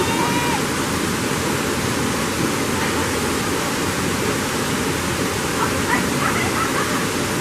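Waterfall: steady rush of water falling over rocks.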